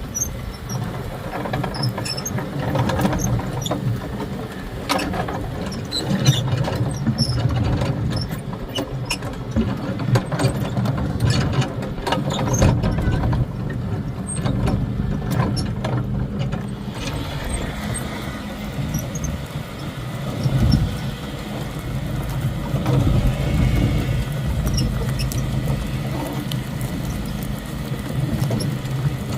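John Deere X350 lawn tractor engine running steadily, with clattering and squealing from the homemade train of carts it tows.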